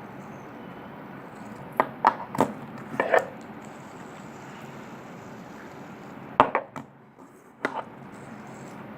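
A few short knocks and clicks of objects being handled, in a cluster about two to three seconds in and another about six and a half seconds in, over a steady low hiss.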